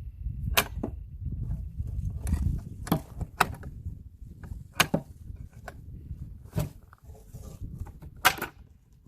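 Sharp knocks and clicks of parts and tools being handled while an NP271D transfer case is taken apart, about six spread irregularly over a low rumble of handling.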